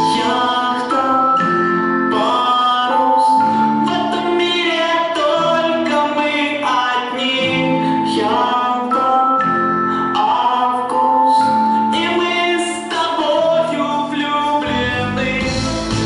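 A song: a voice singing long held notes over instrumental backing, with a fuller bass coming in near the end.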